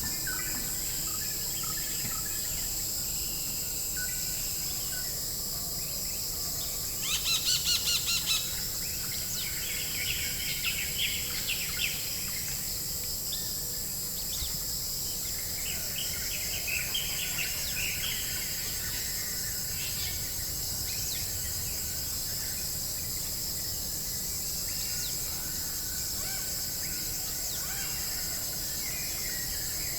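Forest ambience: a steady high-pitched insect drone underneath, with several birds calling. One bird gives a quick rapid run of loud notes about seven seconds in, and short chirps follow scattered through the middle.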